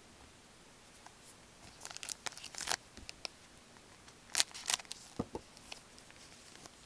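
Gloved hands shuffling and sliding glossy hockey trading cards against each other: short crinkly scrapes and rustles in two clusters, about two seconds in and again a little past the middle.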